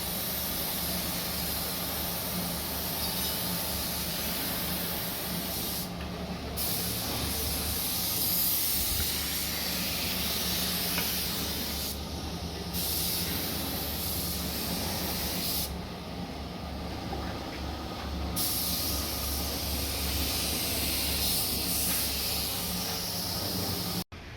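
Compressed-air paint spray gun hissing in long passes, the hiss stopping briefly about six and twelve seconds in and for a couple of seconds around sixteen seconds, when the trigger is let go. A steady low hum runs underneath.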